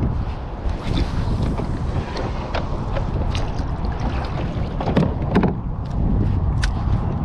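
Wind buffeting the microphone on a kayak at sea, a steady low rumble, with scattered small knocks and splashes; two louder knocks come about five seconds in.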